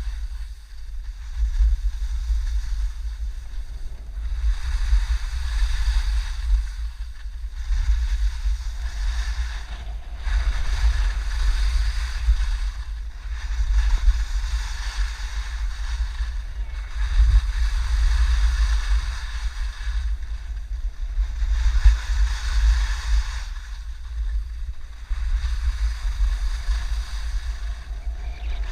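Wind buffeting the microphone: a constant low rumble under a rushing hiss that swells and fades every two to three seconds.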